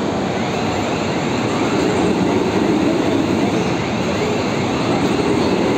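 Steady, loud industrial machinery noise, a dense low rumble, with a faint whirring chirp repeating about twice a second.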